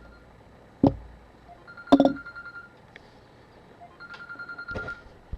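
Two sharp knocks about one and two seconds in, and a high electronic beeping tone that sounds twice for about a second each.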